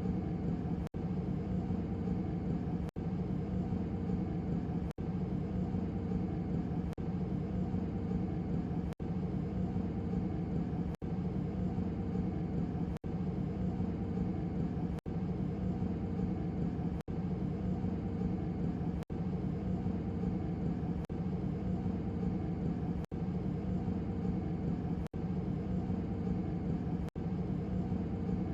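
Steady low hum of hotel hallway ambience, with most of the sound in a deep drone. A brief dropout breaks it about every two seconds.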